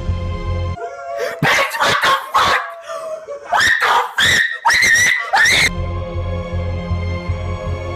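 A run of loud, high-pitched, wavering cries, several in a row over about five seconds, breaks off a low pulsing music drone. The drone returns near the end.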